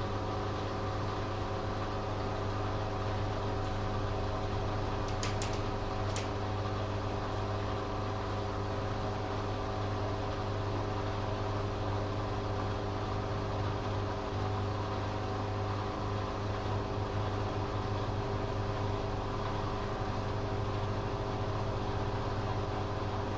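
Hoover Dynamic Next washing machine running on its spin-only programme, a steady low hum with a few light clicks about five to six seconds in.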